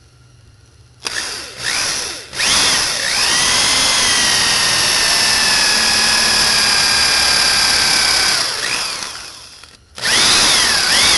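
Electric drill with a countersink bit cutting countersinks into small wooden blocks. There is a short burst about a second in, then a steady run of about six seconds with a whine that falls slightly in pitch as the bit cuts, then it winds down. Another short burst comes near the end.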